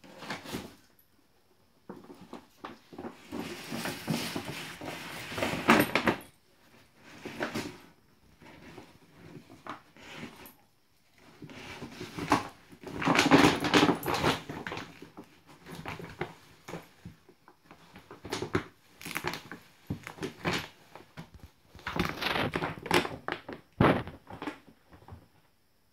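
Large empty dog food bag crinkling and rustling in irregular bursts as a small dog roots about inside it. The loudest stretches come a few seconds in, around the middle and near the end.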